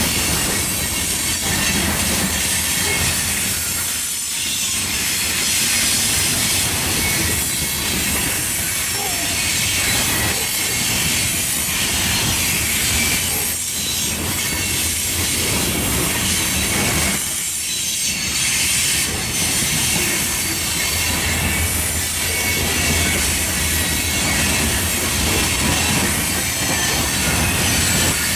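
Covered hopper cars of a long freight train rolling past at close range: steel wheels running on the rail give a steady, unbroken rumble and rattle, with a high metallic hiss from the wheels.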